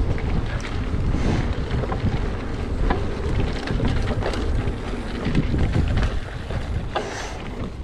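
Mountain bike rolling fast over a dirt forest trail: a steady rumble of tyres on the ground mixed with wind buffeting the camera microphone, with scattered clicks and rattles from the bike.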